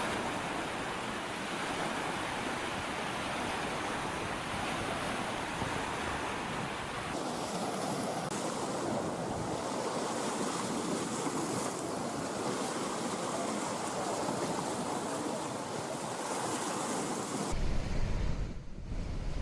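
Floodwater rushing out through the lifted spillway gates of the Nagarjuna Sagar Dam, a steady roar of falling water. The sound changes abruptly about a third of the way in and again near the end, where wind buffets the microphone.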